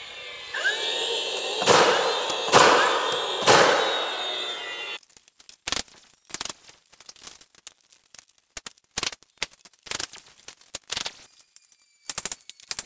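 Cordless finish nailers firing nails through trim boards into ceiling beam framing: three loud, sharp shots in the first few seconds, each ringing briefly in the room. After about five seconds, a scattering of quieter, short clicks and taps follows, with a cluster near the end.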